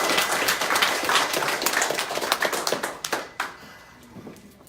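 A small group clapping in applause, which dies away about three and a half seconds in.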